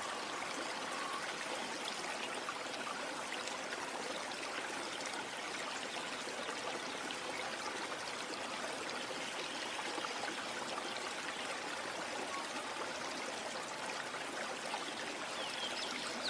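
A steady, even rushing noise with no rhythm or pitch, like flowing water.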